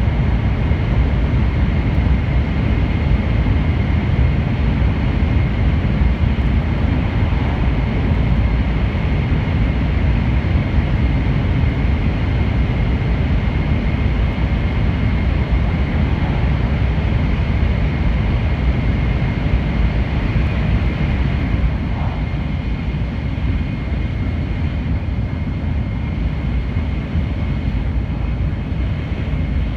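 Running noise of an N700 series 8000 Shinkansen heard inside the passenger car: a steady low rumble of the train travelling along the line, with a thin steady high tone above it. It eases off slightly about two-thirds of the way through.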